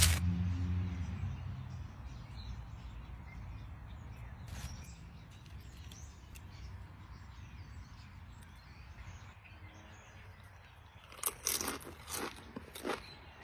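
Tortilla chip being bitten and chewed, a quick run of loud crunches near the end. A low hum fades out in the first couple of seconds.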